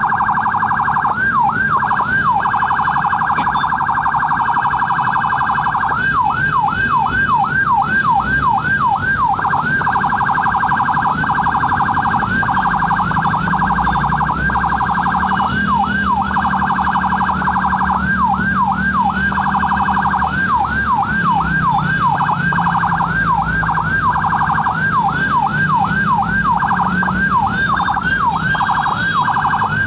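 Ambulance siren switching between a yelp of repeated rising sweeps, about four a second, and stretches of faster warble, over the low, steady hum of the ambulance's engine.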